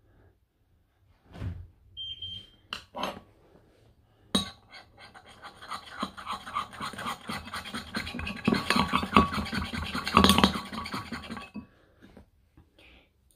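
A metal spoon stirring rapidly in a bowl of slime mixture, scraping and knocking against the bowl in quick strokes, from about four seconds in until shortly before the end. Before that come a few scattered knocks and a brief squeak.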